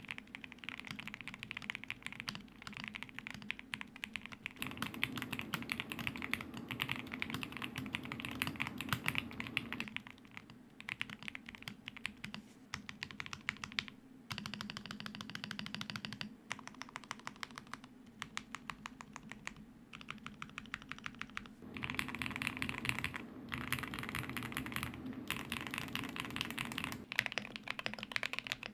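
A custom mechanical keyboard being typed on fast and continuously, with brief pauses between bursts of keystrokes.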